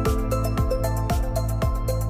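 Background music with a steady electronic beat: a kick drum about twice a second under held synth tones and hi-hats.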